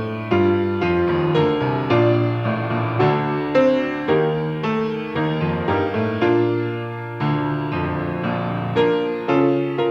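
Solo piano playing a slow, gentle piece, chords struck every half second or so, each one fading before the next.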